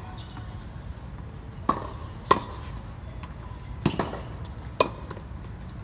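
Tennis ball struck with rackets in a volley drill: four sharp pops, each with a brief ring of the strings, over a low steady background rumble.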